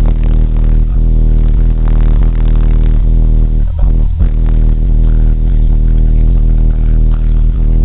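Loud, bass-heavy music played through a car audio system with six JL Audio 13W7 subwoofers, the deep low bass far louder than everything else; the sound briefly breaks up about four seconds in.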